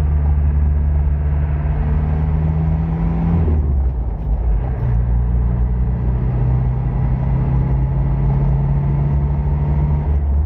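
Car engine and road noise heard from inside the moving car. The engine note drops about three and a half seconds in, then rises steadily as the car picks up speed.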